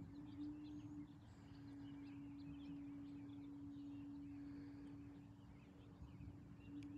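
Faint outdoor ambience: a steady low hum throughout, with scattered faint bird chirps.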